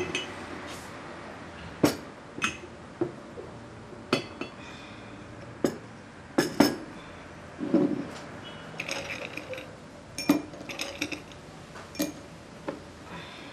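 Crockery being handled on a table: a china teapot, cup and saucer clinking and being set down in a dozen or so separate clinks and knocks, one of them duller and heavier.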